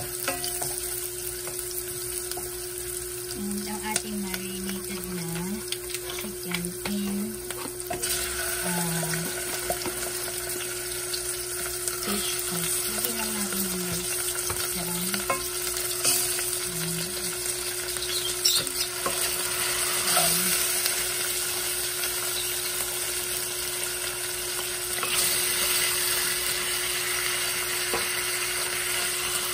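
Sliced onions and garlic sizzling in hot oil in a stainless steel saucepan, stirred with a wooden spatula that scrapes and taps the pan; raw chicken drumsticks go into the pan and are stirred, and the sizzle grows louder about eight seconds in and again near the end.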